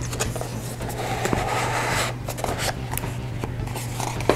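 A small cardboard box being handled and opened by hand: its lid slides and rubs with a scratchy sound, along with light taps and clicks. A steady low hum runs underneath.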